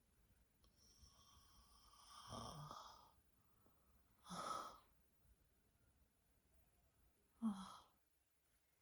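A woman's breathing as she dozes off: one long breath a second or so in, then two short, sharper breaths, about halfway and near the end.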